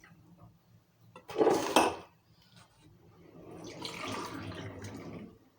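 Kitchenware and liquid being handled: a short, loud clatter about a second and a half in, then a longer, softer stretch of liquid sounds.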